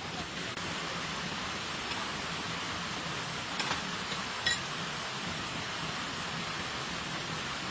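Steady rain falling, an even hiss, with a few short sharp taps around the middle.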